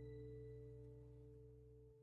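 Faint background music: a held chord slowly fading out, its deepest notes dropping away near the end.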